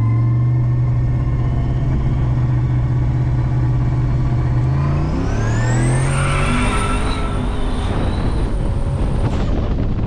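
Turbocharged LSA 6.2-litre V8 held at a steady rev on the two-step launch limiter against the foot brake in first gear, heard from inside the cabin. About five seconds in the car launches: the revs climb and a rising turbo whistle settles into a high steady whine, which cuts off suddenly near the end.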